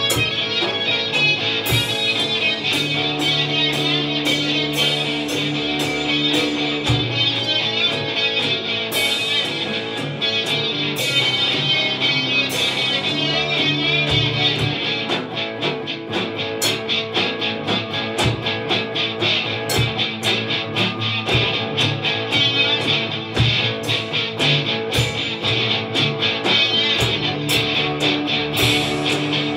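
Instrumental 1960s-style rock played live by two electric guitars and a Gretsch drum kit: strummed chords and held guitar notes over a steady drum beat with cymbal hits.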